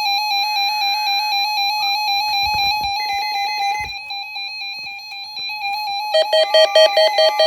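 12-261 weather alert radio's alarm going off, a loud electronic beep pulsing rapidly and steadily, set off by the weekly NOAA Weather Radio test. About six seconds in, a second, lower pulsing beep joins it.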